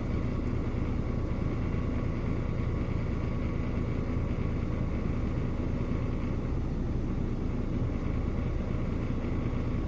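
Mercedes-Benz Actros truck's diesel engine idling: a steady low rumble.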